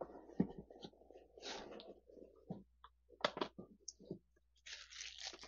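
Hands handling a cardboard box and the plastic-wrapped machine inside it: scattered light clicks and taps, with a short rustle near the end.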